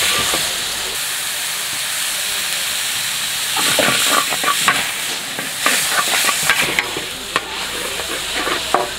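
Mee goreng noodles and bean sprouts sizzling in a hot wok while a metal spatula stirs and tosses them. The frying hiss is steady, and from about the middle on the spatula scrapes and clacks against the wok many times.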